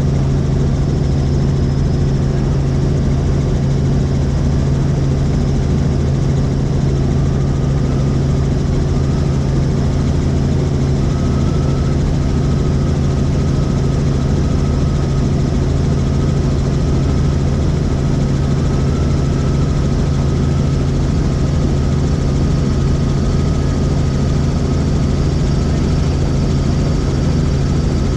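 Helicopter in flight heard from inside the cabin: a steady, loud drone of rotor and turbine with a dense low rumble and a faint high whine over it.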